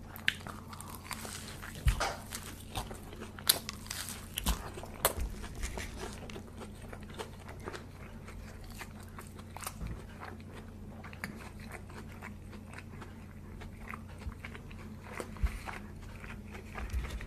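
Close-up mouth sounds of someone eating: biting, crunching and chewing food with wet smacking clicks, busiest in the first six seconds and again near the end. A steady low hum runs underneath.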